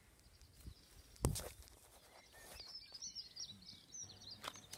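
Quiet outdoor ambience with faint bird chirps, broken by a sharp knock about a second in and a smaller click near the end.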